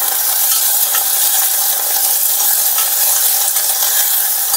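Chopped fenugreek (methi) leaves, mint and coriander sizzling steadily in ghee in a stainless-steel pressure cooker, while a metal spatula stirs them with a few light scrapes and taps against the pan.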